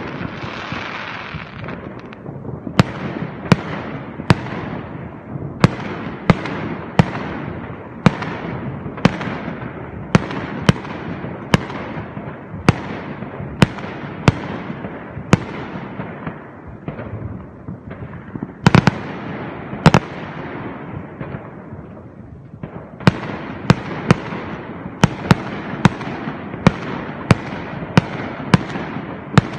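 Aerial fireworks bursting in a steady run of sharp bangs, about three every two seconds, each trailing off into a fading rumble. About two-thirds of the way through comes the loudest pair of bangs, then a short lull before the string of bangs starts again.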